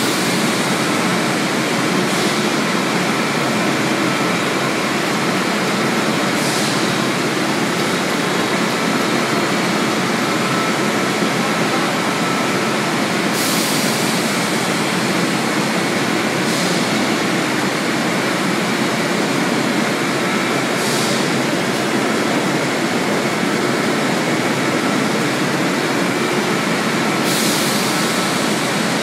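Steady, loud machinery noise from a running stainless-steel rotary screw blancher and its vibratory discharge conveyor, with a faint constant hum and brief hisses every few seconds.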